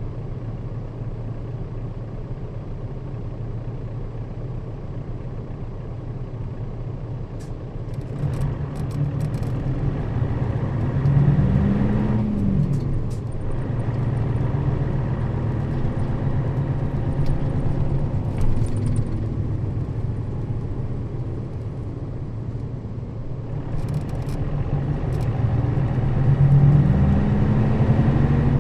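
Nissan Diesel KL-RA552RBN bus's diesel engine heard from inside the cabin, running low and steady. Twice its pitch climbs and then falls back as the engine revs up and eases off.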